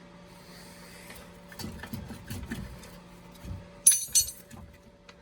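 Metal bolts and tools being handled while the strut-to-spindle bolts are removed. There is scraping and knocking, then two sharp metallic clinks with a brief ringing tone about four seconds in.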